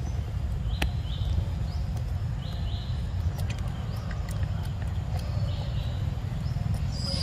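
Outdoor ambience: a steady low rumble with short high two-note chirps, like a bird's, repeating every second or so, and scattered sharp clicks.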